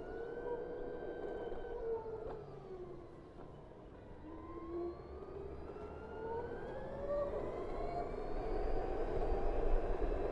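BMW CE 04 electric scooter's motor whining. Its pitch falls as the scooter slows over the first few seconds, then rises steadily as it speeds up again, with wind and road noise growing near the end.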